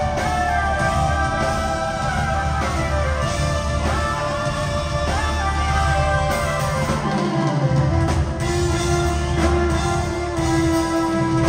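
Live rock band playing: electric guitars, bass, drums and keyboards in full flow.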